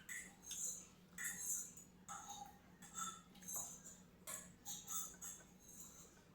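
Close-up chewing of crisp food, with a short crunch every half second to a second.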